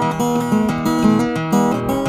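Background music: solo acoustic guitar, notes plucked over a steady, repeating bass line.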